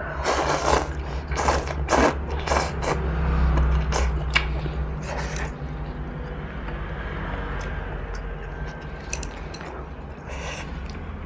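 Close-miked slurping and chewing of spicy kimchi noodles in soup, a quick series of wet bursts over the first few seconds, then quieter chewing with a few small clicks. A steady low hum runs underneath.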